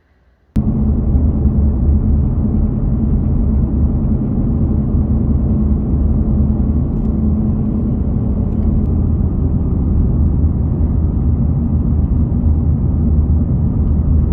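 A car driving: a steady low engine and road rumble that cuts in abruptly about half a second in.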